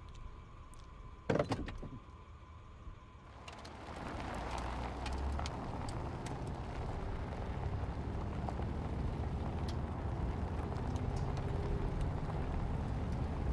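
A sharp knock about a second in, then, from about three and a half seconds in, the steady rumble and hiss of a car driving at road speed, heard inside the cabin.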